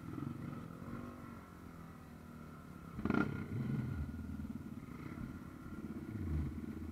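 Off-road dirt bike engines running at a low idle, with a sudden louder burst about three seconds in and a couple of brief revs after it.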